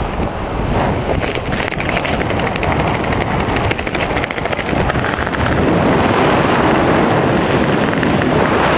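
Wind rushing over a skydiver's camera microphone high above the ground, a loud steady roar that grows louder about six seconds in.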